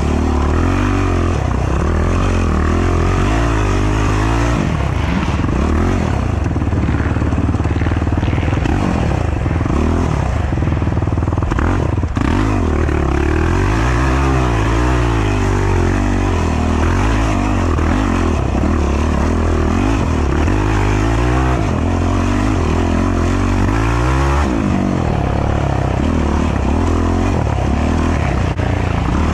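Race ATV's engine running hard, its pitch rising and falling again and again as the throttle is worked at low trail speed. One sharp knock about twelve seconds in.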